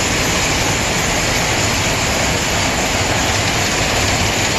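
Hank-to-cone yarn winding machine running: its grooved metal drums turn cones of yarn in a steady mechanical whir with a low hum underneath.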